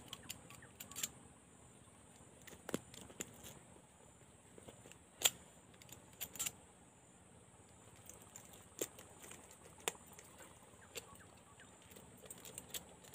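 Faint, irregular clicks and knocks of an angler handling gear close to the microphone, over a steady faint high-pitched whine.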